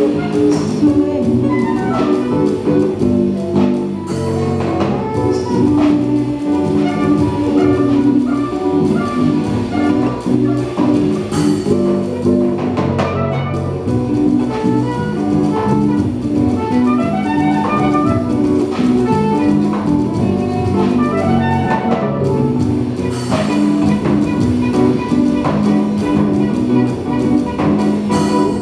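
Live Latin-jazz band playing: acoustic guitar, electric bass, drum kit and percussion, and saxophone.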